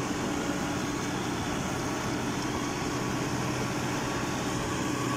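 Ford 6610 tractor's four-cylinder diesel engine running steadily under load, hauling sacks of rice through mud.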